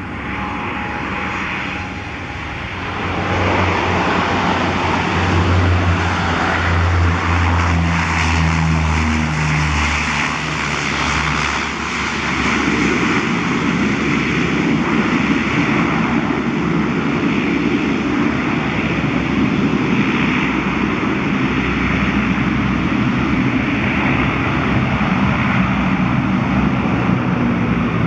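Turbo Commander's twin Garrett TPE331 turboprops on approach and landing rollout. The engines grow loud a few seconds in, with a low propeller drone, then give way to a broader steady rush as the aircraft rolls down the runway.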